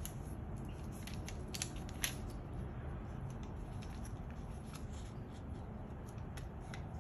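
Square sheet of origami paper being folded and creased by hand: a run of small crisp paper crackles and clicks, two sharper ones about a second and a half and two seconds in, over a steady low background rumble.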